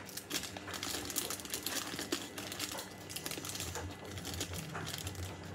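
Plastic sweet wrappers rustling and crinkling with irregular small clicks as hands dig through a stash of wrapped Halloween candy.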